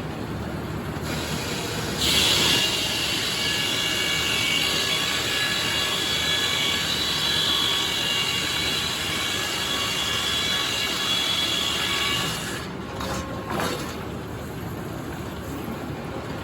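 Sawmill saw cutting red oak: the mill runs steadily, then about two seconds in the blade bites into the wood with a loud, high-pitched whine lasting about ten seconds, dropping back to the steady running of the mill when the cut ends.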